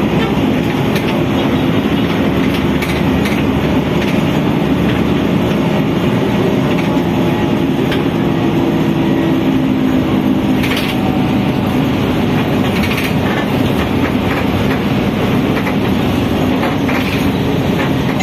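Cabin noise of a city bus under way, heard from inside: a steady engine and road drone with a low tone that drifts slightly in pitch, and a few brief clicks and rattles from the fittings.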